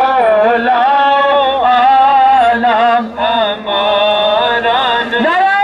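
A man's voice in devotional chanting, holding long wavering notes; near the end it sweeps up into a long high held note.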